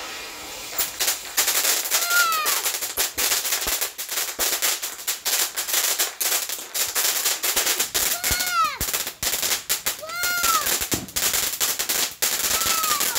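Fireworks going off: about a second of hissing, then a dense, rapid run of sharp crackling pops and snaps, with a few short whistles that rise and fall in pitch.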